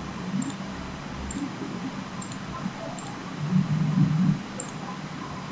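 A few faint, separate computer mouse clicks, spaced about a second apart, over steady low room hiss, with a brief low rumble about two-thirds of the way through.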